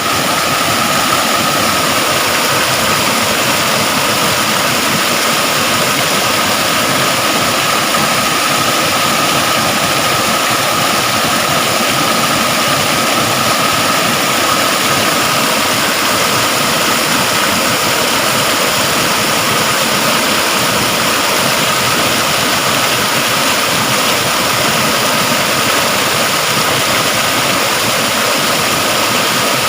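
Steady, loud rush of falling water, running without a break, with a faint steady tone in it.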